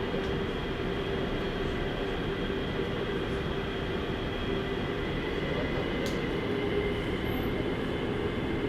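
A software-updated Daegu Metro Line 1 train running at steady speed, heard from inside the passenger car: an even rumble of wheels on rails with a steady motor hum. There is one brief click about six seconds in.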